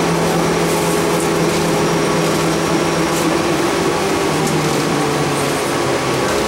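City transit bus heard from inside the cabin while under way: the engine and drivetrain make a steady drone with a held hum, which steps down in pitch about five seconds in.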